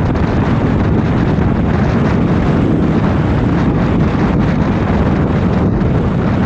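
Harley-Davidson motorcycle running at steady road speed, its engine under heavy wind rush on the microphone.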